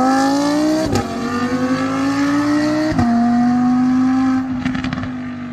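Audi R8 V10 engine accelerating hard, its note climbing with two quick upshifts, about a second in and about three seconds in. It eases off near the end with a few crackles from the exhaust.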